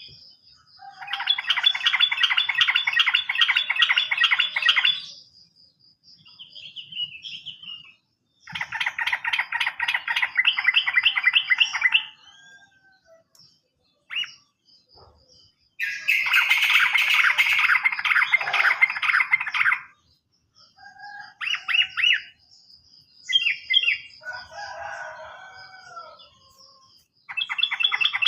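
Yellow-vented bulbul (trucukan) singing in long, rapid chattering trills of about four seconds each, three of them, with shorter bursts of the same notes between.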